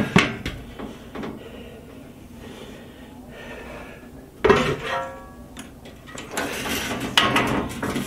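Metal knocks and clattering from parts and tools being handled inside a corn stove's sheet-metal cabinet. There are a few single knocks early on, a loud clatter about halfway through followed by a brief ringing tone, and denser clattering near the end.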